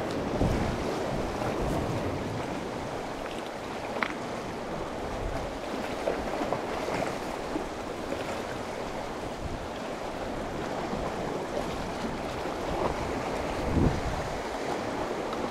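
Sea waves washing against shoreline rocks, a steady rushing with wind on the microphone. A few small clicks come through now and then.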